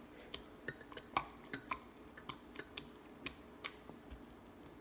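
A string of light, irregular clicks and ticks from handling food at the table, a few with a short ringing ping, thinning out after about three and a half seconds.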